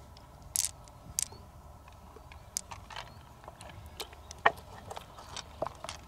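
Scattered small wet clicks and squelches from fingers working pearls out of an opened freshwater mussel's soft flesh, irregular and several a second, with one sharper click about halfway through.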